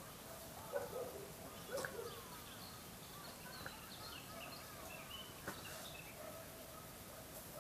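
Faint outdoor ambience of small birds chirping and whistling, with a few sharp clicks.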